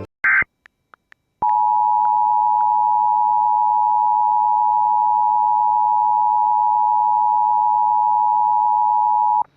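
Emergency Alert System attention signal: the two-tone 853 Hz and 960 Hz alert held steady for about eight seconds, then cut off sharply. It follows a brief burst of the warbling digital header data near the start.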